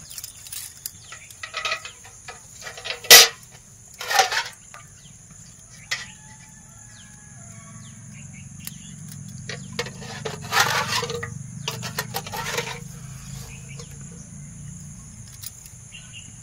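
Hand-watering a sapling from a brass bucket: a small brass pot clanks sharply against the bucket about three seconds in, then water is scooped and poured onto the soil in a few splashy gushes, the longest about ten to thirteen seconds in. A steady high drone of insects runs underneath.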